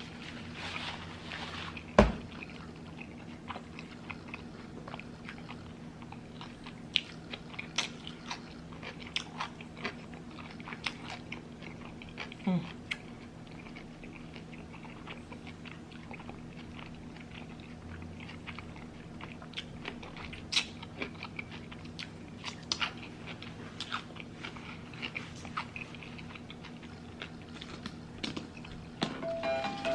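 Close-miked chewing and biting of a bacon cheeseburger and fries, with many short, sharp mouth clicks and crunches over a low steady hum. A louder click comes about two seconds in.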